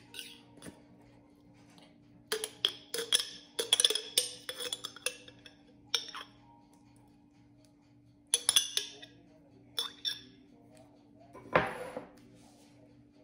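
Metal spoon clinking against a glass jar and a mixing bowl while scooping macapuno (sweet coconut strings) out of the jar. The clinks come in several short runs, with a louder clatter near the end, over a faint steady hum.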